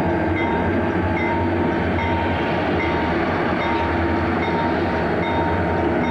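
Several Conrail diesel locomotives leading a westbound freight as they pass, engines running with a steady rumble.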